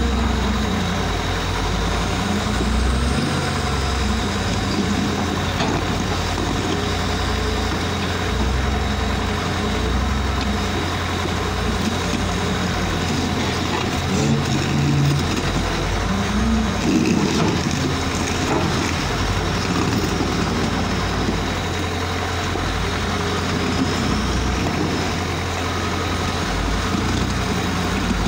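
Large Caterpillar wheel loader's diesel engine running under load as it pushes a granite block, its pitch rising and falling.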